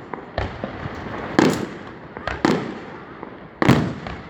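Aerial fireworks shells bursting overhead: about five sharp booms, two in quick succession near the middle, the loudest about three and a half seconds in.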